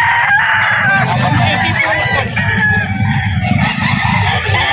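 Several gamecocks crowing over one another, with clucking between the crows, above a steady low background rumble.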